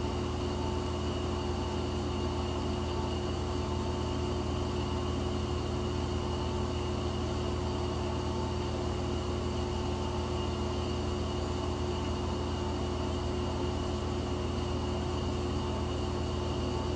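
Steady low machine hum with an even hiss and a few faint held tones, unchanging throughout: background room tone.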